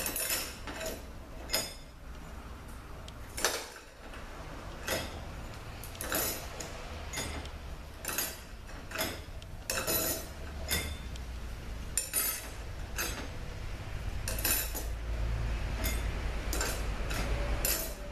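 Steel clutch plates and friction discs clinking as they are dropped and stacked by hand into the direct clutch drum of a Chrysler 62TE automatic transmission. It makes a long run of sharp, irregular metallic clicks and clinks.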